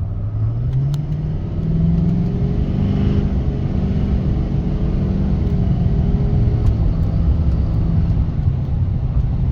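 Duramax L5P 6.6 L turbo-diesel pulling under a brisk acceleration, breathing through a Banks Ram-Air cold air intake. The engine note climbs over the first two seconds, holds, then falls back about seven seconds in. Intake suction and turbo whine are heard over the low diesel tone.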